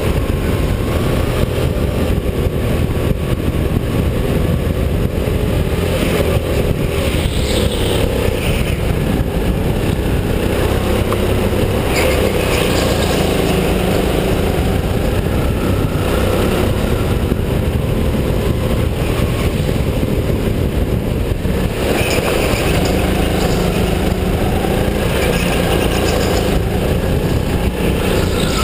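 Go-kart engine running hard, heard close up from the kart itself, its note shifting up and down as the kart accelerates and slows through the corners.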